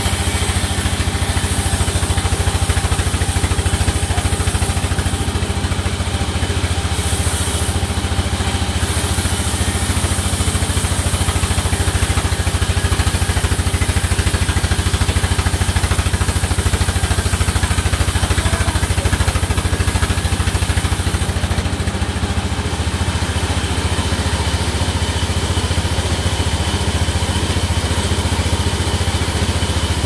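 Sawmill band saw running steadily with a constant low hum while it rips a mango log fed through on the carriage.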